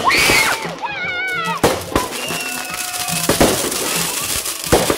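Fireworks going off: several sharp bangs about a second or so apart, with crackling between them, mixed with music.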